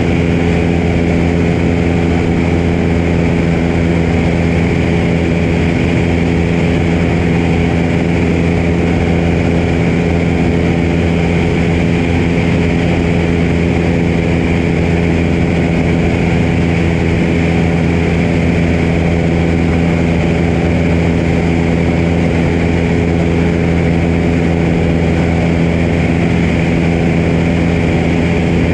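Piper PA-22 floatplane's piston engine and propeller running steadily in flight, an even drone with no change in pitch, under a constant rush of wind past the float-mounted camera.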